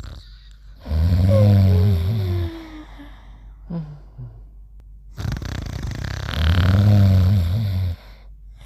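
Cartoon snoring: a loud low snore with a whistle falling in pitch over its tail, repeating about every five seconds, twice, with a short faint snort between.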